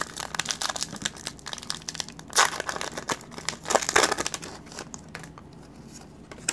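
Foil wrapper of a Pokémon TCG booster pack crinkling and crackling as it is handled. Two louder crinkling bursts come about two and a half and four seconds in, and it settles to quieter rustling after about five seconds.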